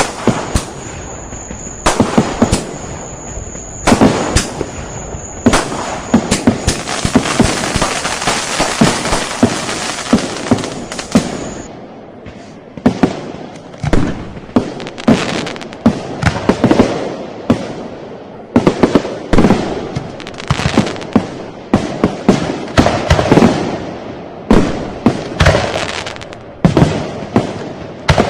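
Firecrackers and fireworks going off. A dense crackle of rapid bangs runs for about the first twelve seconds, with a high thin whistle over the first few seconds. After that come separate sharp bangs, often several a second.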